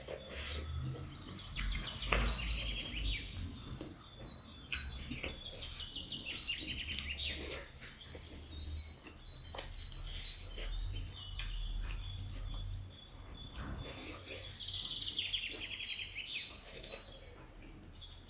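Eating sounds: chewing and scattered sharp clicks of food and utensils. Birds keep chirping and trilling in the background.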